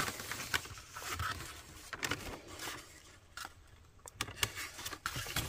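Brown paper bag rustling and crinkling in short, scattered bursts as a hand draws a chocolate bar out of it, with a few light ticks from handling.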